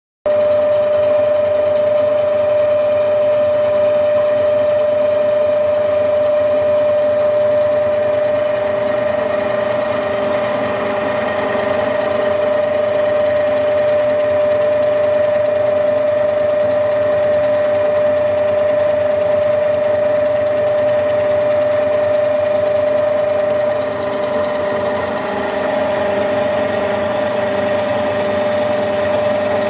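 Milling machine running steadily, with a constant whine and a faint regular pulsing beneath it.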